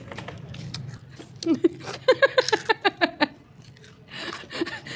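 Crunchy spicy papad being bitten and chewed, with a run of short, rhythmic bursts of a person's voice from about one and a half to three seconds in.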